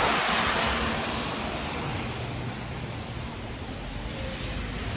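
Articulated city bus driving past close by on a wet, slushy street, the hiss of its tyres and its running gear loud at first and fading over the first couple of seconds as it moves away, leaving quieter street noise.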